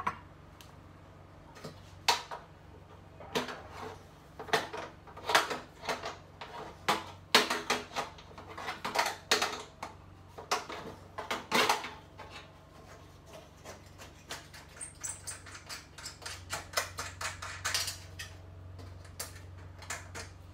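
Small adjustable wrench clicking and clinking against a nut and the sheet-metal base of a Vatti electric cooktop as a retaining nut is loosened and taken off: irregular metallic taps, some ringing briefly, busiest in the first half.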